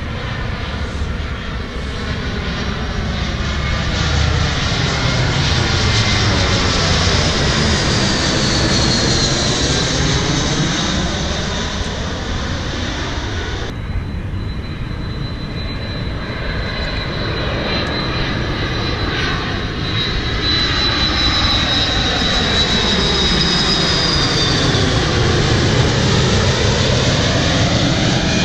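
Jet airliners passing low overhead on approach to land: a dense engine rumble with a high whine that slides down in pitch as the first one goes by. About halfway through the sound changes abruptly to a second airliner, whose steady high whine and rumble swell again near the end.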